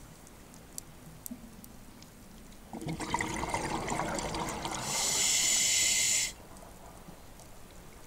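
Scuba diver breathing through a regulator underwater: a bubbling rush starts about three seconds in, a high hiss from the regulator joins it about two seconds later, and both stop abruptly. Faint scattered clicks throughout.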